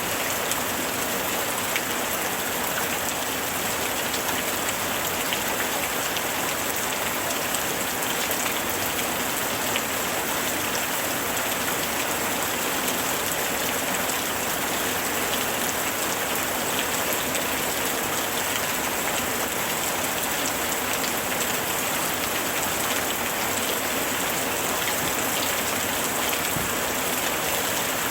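Steady summer rain falling on a hard surface: an even hiss with many fine drop ticks throughout.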